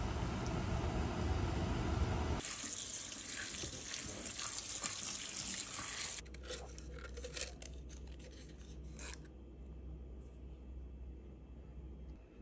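A steady rumbling noise for the first two seconds or so, then a kitchen tap running onto blanched celtuce stems in a mesh strainer in a stainless sink, a bright splashing hiss that cuts in suddenly. After about six seconds it gives way to scattered drips and light clicks, fading to a faint hum.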